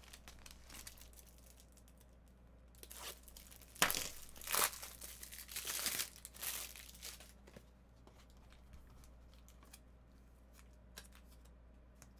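Trading card pack wrappers being torn open and crinkled, with a cluster of tearing and crinkling from about three to seven seconds in and lighter handling clicks around it.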